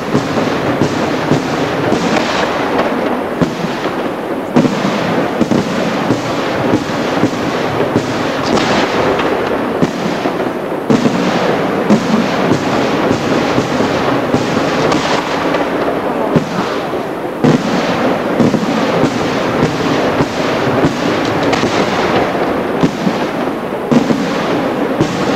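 Dense fireworks barrage: aerial shells bursting one after another in rapid, unbroken succession, a continuous run of bangs with no pause.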